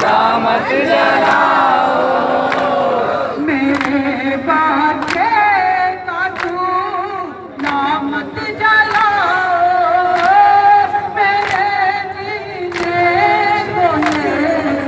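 A nauha, a Shia mourning lament, sung by a group of men's voices, with sharp hand slaps on chests (matam) about once a second keeping the beat.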